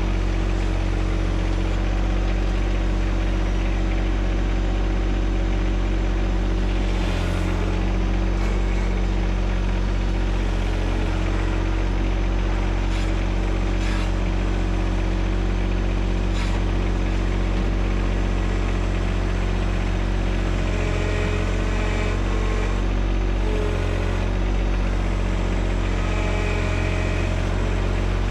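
John Deere 1025R subcompact tractor's three-cylinder diesel engine running steadily at a constant speed, with a few brief knocks now and then.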